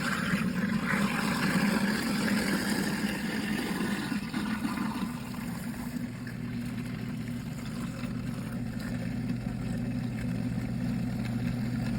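Kitchen garbage disposal motor running with the tap water on, grinding ice cubes. The rough grinding is strongest in the first few seconds, then eases off about halfway through into a steadier motor hum as the ice is ground down.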